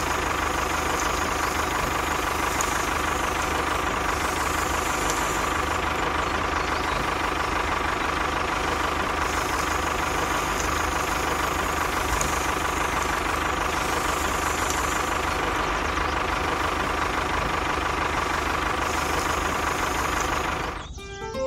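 Tractor engine running steadily at an even pitch. It fades out near the end as plucked-string music comes in.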